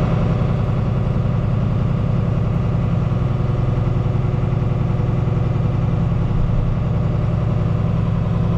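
John Deere 4440 tractor's six-cylinder diesel engine running at a steady speed, heard from inside the cab.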